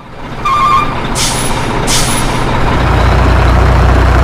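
Heavy truck sounds: a quick run of short beeps, two sharp air-brake hisses, then a diesel engine rumbling steadily from a bit past halfway.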